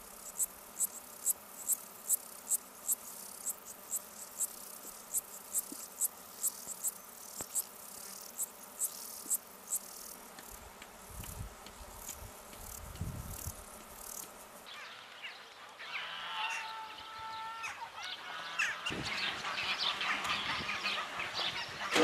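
A cricket chirping in a steady rhythm, about two to three short high chirps a second. About fifteen seconds in it gives way to a flock of domestic geese calling and honking.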